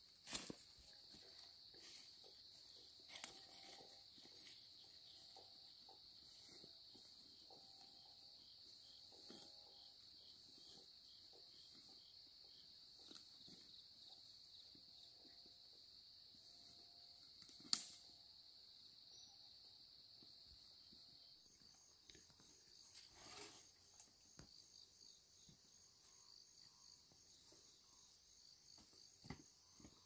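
Faint, steady high-pitched insect trilling, joined about two-thirds of the way in by a second, higher, pulsing insect call. Scattered small clicks and rustles, with one sharp click a little past the middle.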